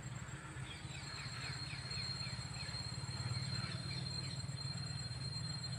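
Creekside ambience: an insect keeps up a steady high-pitched trill, with a quick run of short falling bird chirps in the first half, over a low steady rumble.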